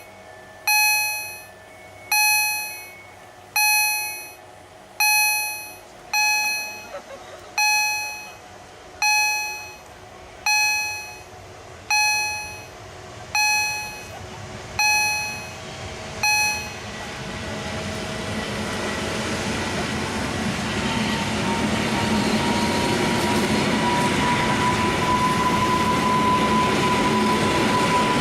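Level-crossing warning signal from EHL-S10 electronic gong generators, striking about once every second and a half, twelve strokes, then falling silent about 16 seconds in. A train then approaches, its running noise growing steadily louder, with a thin steady squeal from the wheels toward the end.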